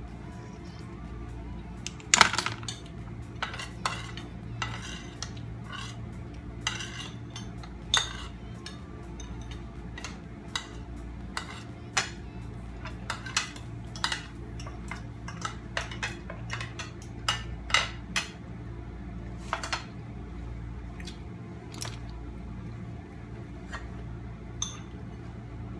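Metal spoons and forks clinking and scraping against ceramic bowls and a plate of clam shells as the clams are eaten: irregular clicks with a sharper clatter about two seconds in, over a steady low hum.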